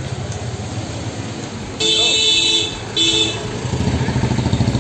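Street traffic: a vehicle horn sounds about two seconds in, holds for under a second, and gives a short second toot a moment later; then a motorcycle engine runs close by near the end.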